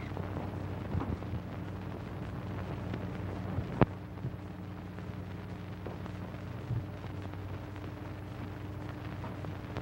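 Steady hum and hiss of an old optical film soundtrack, with a few faint knocks and one sharp click about four seconds in.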